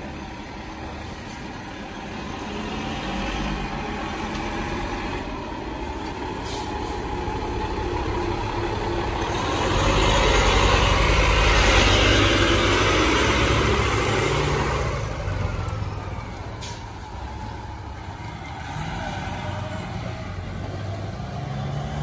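Pierce fire engine's diesel engine running as the truck pulls out and drives past close by. It grows to its loudest about halfway through, then fades as the truck moves off down the street.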